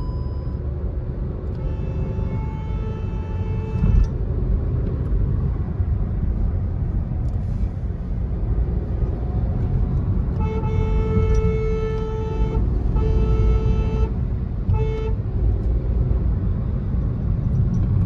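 Steady engine and road rumble heard from inside the cabin of a Hyundai Venue turbo-petrol car driving in traffic, its engine running smoothly now that new spark plugs have cured its misfire. Car horns honk four times: a two-second blast near the start, then from about ten seconds in a long blast, another, and a short toot.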